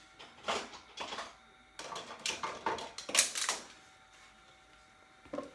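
Hands handling small hard objects such as tools and wire parts: a run of irregular clicks, knocks and clatter that dies down after about three and a half seconds.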